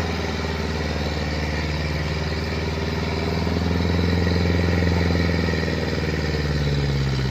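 Vehicle engine running steadily at low revs, its pitch and loudness rising a little about halfway through and then easing back.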